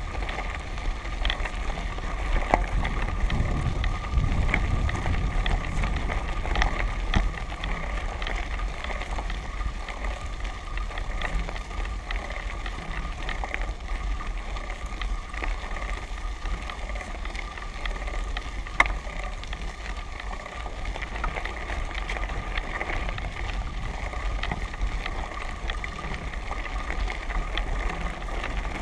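Tyres rolling over a loose gravel road: a steady crackling crunch of stones with scattered small ticks and one sharper click about two-thirds of the way through, over a constant low rumble.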